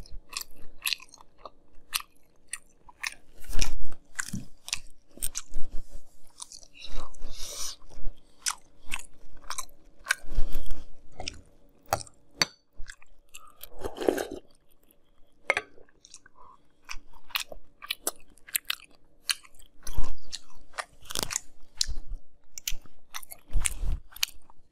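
Fruity Pebbles cereal in milk being chewed close up: irregular wet crunching, with a few louder bites and short pauses. A metal spoon clinks and scrapes in the glass bowl as he scoops.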